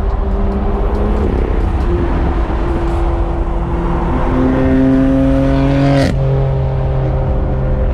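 BMW F8X M car's turbocharged straight-six pulling hard, its pitch climbing for a couple of seconds, then a sharp crack about six seconds in as it shifts up, the revs dropping after. Steady tyre hiss from the wet road underneath.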